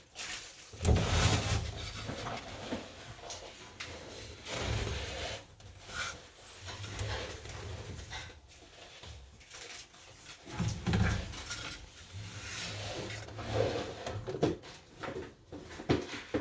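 Irregular knocks, clunks and rubbing from a Nautilus NE3000 elliptical machine and its parts, with no squeak.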